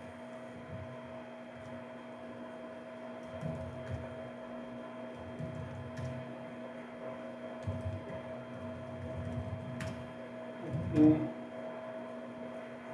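Computer keyboard typing: a few scattered key clicks over a steady electrical hum, with one brief louder sound near the end.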